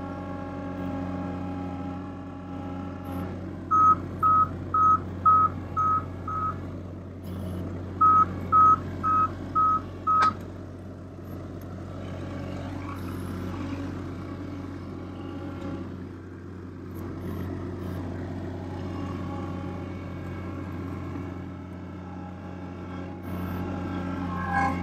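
Avant 528 compact loader's diesel engine running steadily, with an electronic beeper sounding two runs of short, evenly spaced beeps, six and then five at about two a second, in the first half, typical of a reversing alarm.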